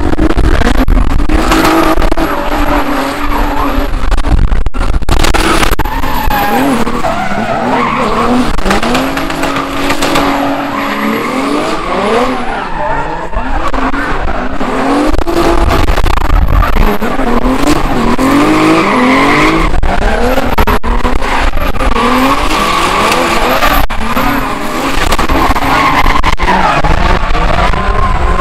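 Drift cars' engines revving hard, the revs rising and falling again and again, over a continuous squeal and rush of spinning, sliding tyres.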